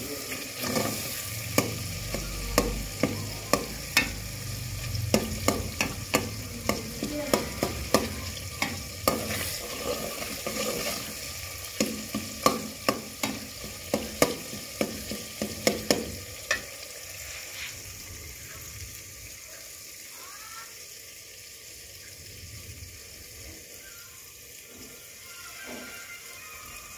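Metal spoon scraping and knocking against an aluminium pot, about two knocks a second, while stirring an onion and tomato masala that sizzles as it fries. The knocks stop about two-thirds of the way through, leaving only the quieter sizzle.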